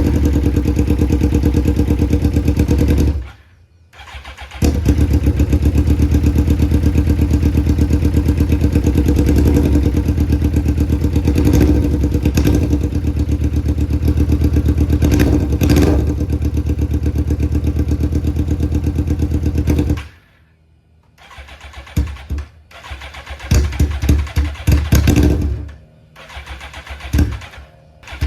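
Suzuki GSX-R1000 inline-four engine starting and running roughly. It cuts out about three seconds in, catches again and runs until about twenty seconds in, then dies and only sputters in short bursts near the end. It is barely running, on a cylinder or two, which the owner puts down to clogged fuel injectors.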